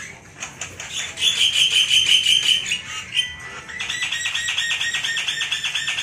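Caged songbird singing: a rapid high trill for about a second and a half, then after a short break a fast run of repeated notes, about eight a second.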